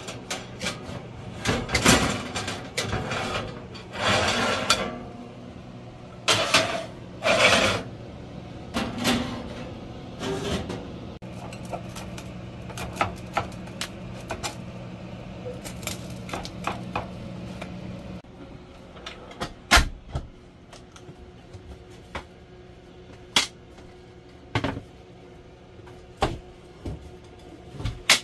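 Kitchen handling noise: a metal pizza pan scraped and clattered out of a gas range oven with tongs, then a run of sharp knocks as a rocking pizza knife chops through the pizza on the pan. Under it is a low steady hum that stops about two-thirds of the way through.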